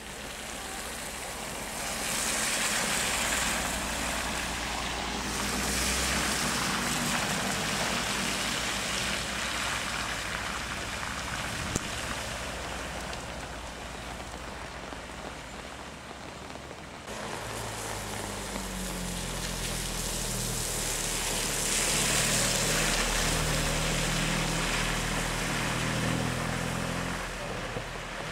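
BMW cars driving one after another through standing water on a flooded road, their tyres hissing and splashing through the water. In the second half an engine note rises and falls as a car pulls away.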